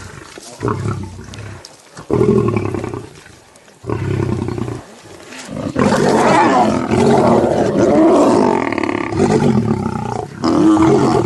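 Lions growling over a kill while they feed, in short bouts at first and then a longer, louder stretch from about six seconds in.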